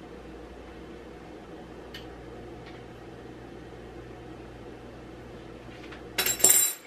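Steady low hum of a running appliance. About six seconds in, a loud hiss lasts about half a second, and the hum cuts off right after it.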